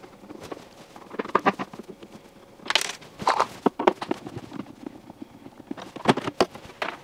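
Screwdriver backing out the side-panel screws of a compact tabletop dishwasher, then the side panel being worked loose and slid off: irregular clicks, scrapes and short rattles, the loudest clusters about three seconds in and near the end.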